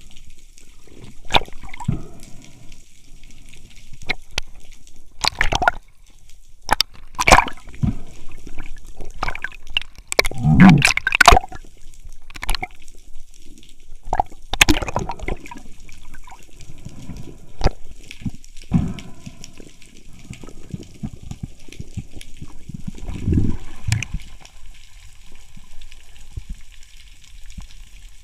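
Water sloshing and gurgling around an underwater action camera, with irregular sharp clicks and knocks and a few louder rushing bursts, as a spearfisher hauls in a line hand over hand.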